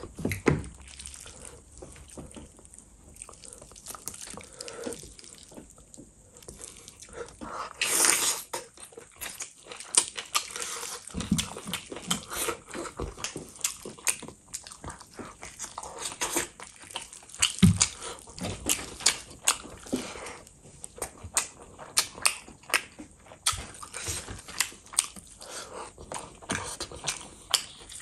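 Eating sounds from bare hands tearing apart and squeezing gravy-soaked mutton leg and rice: many rapid, irregular wet clicks and squelches, along with chewing.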